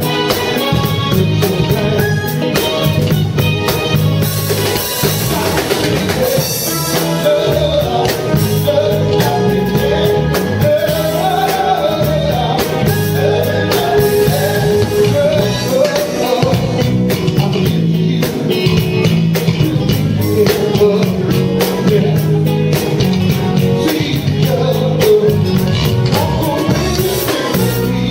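Live band music with drums, guitar and keyboards, and a voice singing over it.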